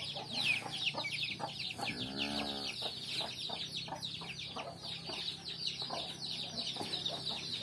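Chickens clucking and chirping, a steady run of short high calls, with one short rising-and-falling call about two seconds in.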